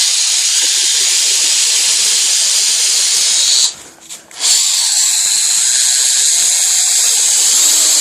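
Electric drill running under load, boring a hole into a Master Lock padlock, with a high hiss. It stops for under a second about four seconds in, then runs again.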